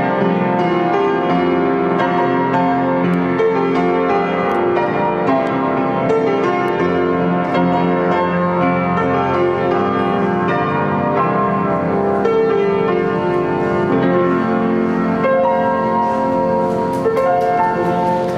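Upright piano played solo: a melody over full, busy chords.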